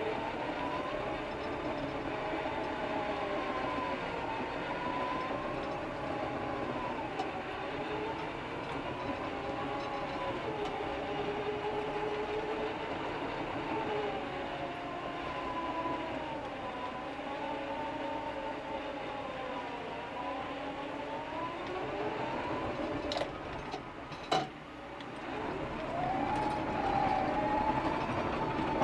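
Cat grade-control bulldozer heard from inside the cab, working under load. Its pitched drone rises and falls slowly as the load changes. A couple of sharp clicks come near the end.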